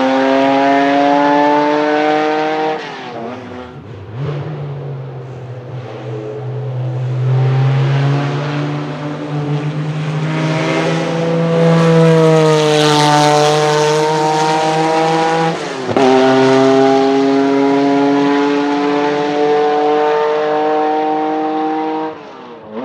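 Porsche 911 race car's flat-six engine at high revs on track, the revs dropping and picking up sharply around three seconds and again around sixteen seconds. It climbs in pitch and passes close and loud about twelve seconds in, then holds high revs before fading near the end.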